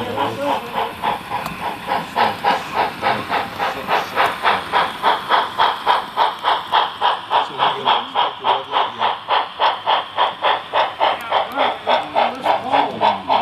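Model SP&S Z-8 4-6-6-4 steam locomotive's sound system playing steady exhaust chuffs, about four a second, each with a hiss of steam, as the engine pulls its freight train.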